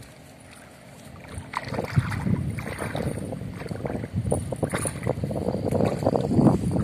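Water sloshing and splashing around a person's legs as he wades into a shallow lake, starting about a second and a half in and growing louder.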